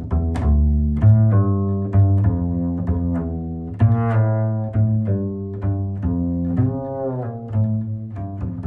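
Background instrumental music: low, sustained string-like notes with plucked attacks, moving to a new note about once a second.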